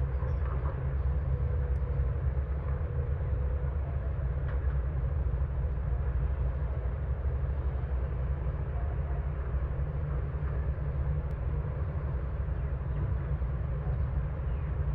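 Heavy construction machine's diesel engine running steadily, a deep, constant low engine sound with no changes in pace.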